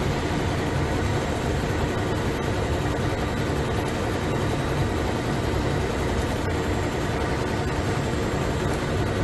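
Gantry-type CNC heating-wire sewing machine running, its head stitching a wire onto a panel: a steady mechanical running noise.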